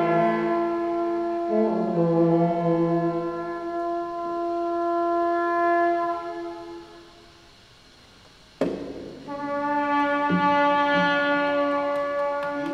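Experimental improvised music of long held instrumental tones, several pitches overlapping. The tones fade to quiet about six seconds in, then after a sharp click new held tones enter.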